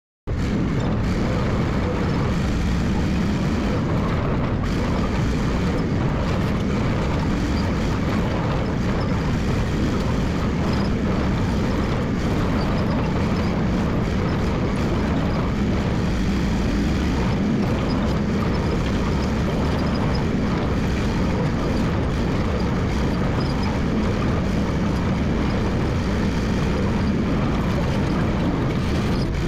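Massey Ferguson MF 300 crawler dozer's engine running steadily and loud as the machine works.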